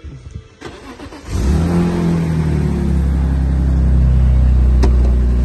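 A 2002 BMW M3's 3.2-litre straight-six starts about a second in, flares briefly and settles into a steady idle. A single light click comes near the end.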